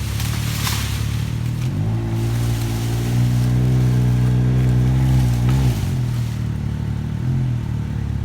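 An engine running and being revved: it rises in pitch about two seconds in, holds there for about four seconds, drops back, and revs up briefly again near the end.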